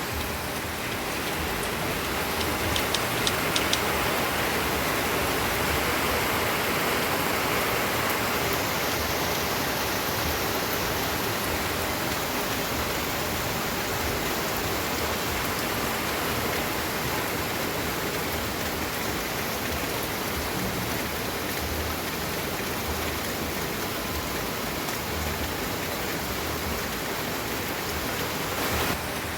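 Steady rain falling, an even hiss, with a few sharp drip ticks about three seconds in.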